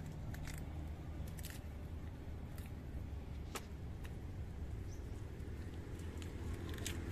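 Steady low rumble of road traffic, with scattered light clicks and taps as cut pieces of red reef fish are handled on a wooden chopping block.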